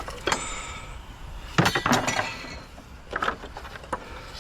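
Pieces of scrap metal clanking and clinking as they are handled, with a loud cluster of knocks about a second and a half in and a few lighter ones after.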